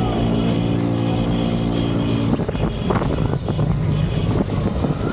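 Wind and rolling noise from a mountain bike riding along a road, with background music over it; a steady held tone cuts off about two and a half seconds in, leaving the rougher riding noise.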